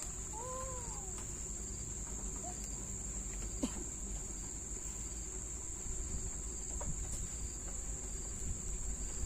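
Insects giving a steady, high-pitched, unbroken trill over a low outdoor rumble, with a short rising-and-falling animal call near the start.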